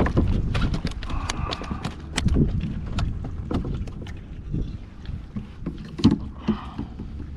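Scattered clicks and knocks of a small snook being handled aboard a kayak after landing, over a steady low wind rumble on the microphone.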